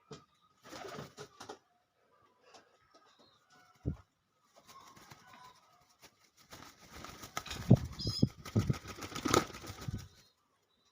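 Pigeon learning to fly, flapping its wings in bursts: a short flurry about a second in, a single thump near four seconds, then a longer, louder stretch of flapping with knocks before it stops near the end.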